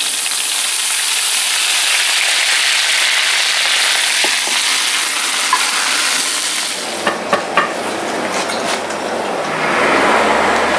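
Salmon fillet sizzling in foaming nut-brown butter in a frying pan, with fresh lemon squeezed in: a steady high hiss. After about seven seconds the sizzle drops away and a few sharp clicks follow.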